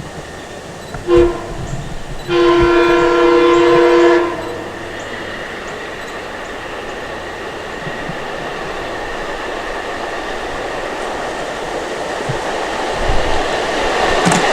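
LIRR M3 electric multiple-unit train sounding its horn: a short blast about a second in, then a long blast of about two seconds, the close of the grade-crossing signal. After that the train's running noise and wheels on the rails grow steadily louder as it approaches.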